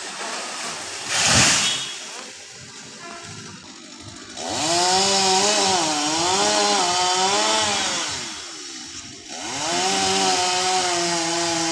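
Chainsaw cutting into a coconut tree, revved hard in two long runs whose pitch wavers and sags under the load of the cut. A short, loud burst of noise comes just over a second in.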